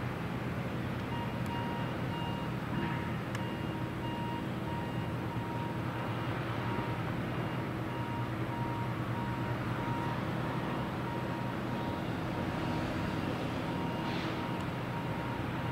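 A steady low engine hum over a wash of background noise, with a high electronic beep repeating in short even pulses from about a second in.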